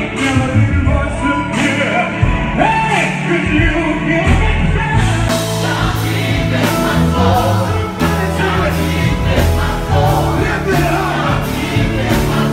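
Live gospel music: a choir and lead singers singing over a backing with a steady beat and a strong bass line.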